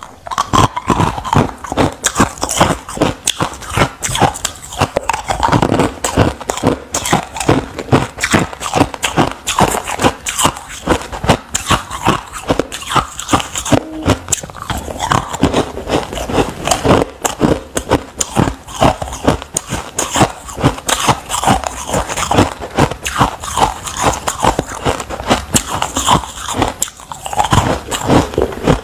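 A person biting and chewing chunks of white ice: dense, rapid crunching and crackling, one crunch after another with hardly a pause.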